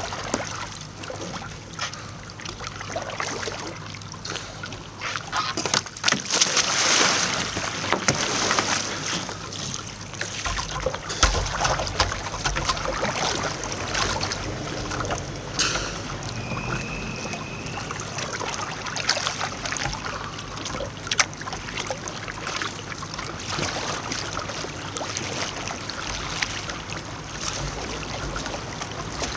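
Kayak paddle blades dipping and splashing in river water, with water sloshing and trickling around the hull, louder about 6 to 8 seconds in.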